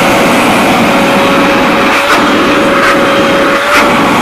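Wet-and-dry drum vacuum cleaner running steadily, its motor giving a high steady whine over a loud rush of air. Three brief ticks come about two, three and nearly four seconds in.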